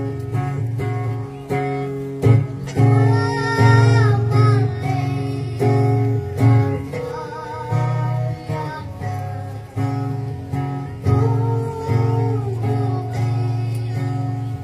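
Two acoustic guitars strummed in a steady rhythm, with a child singing a Khasi song over them.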